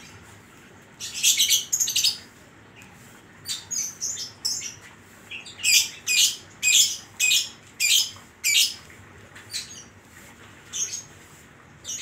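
Caged Oriental magpie-robin (kacer) singing loud, sharp, high notes. A quick burst comes about a second in, then a run of clear notes at about two a second, tailing off into a few softer notes near the end.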